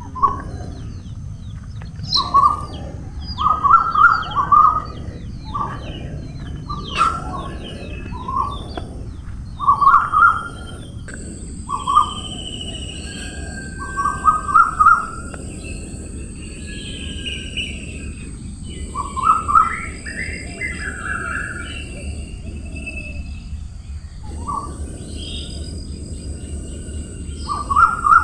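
Several forest birds calling. One bird gives loud, short phrases of two to four quick notes every second or two, while higher chirps sound in the background over a low rumble. About a third of the way in, a steady high-pitched hiss begins and carries on.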